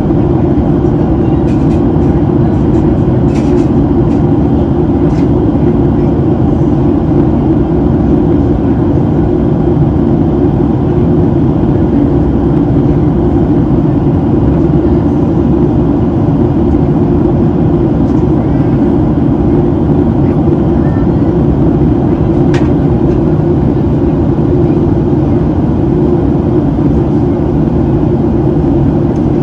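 Steady cabin noise inside a Boeing 737-700 in flight: the CFM56-7B engines and the airflow over the fuselage make a constant deep rush.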